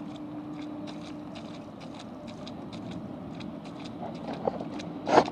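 Rubber boots (Muck Boot Woody Pro) walking through shallow puddle water, a steady rhythm of splashy steps with one louder step near the end.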